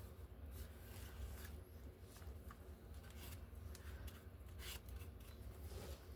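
Faint rustling and light taps of paper and craft materials being handled, several short strokes over a low steady hum.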